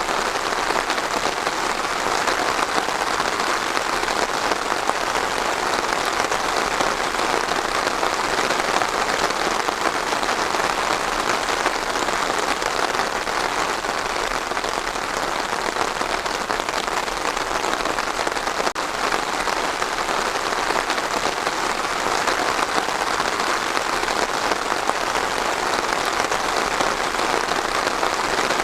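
Steady rain falling on a surface, an even, dense patter that holds without letting up.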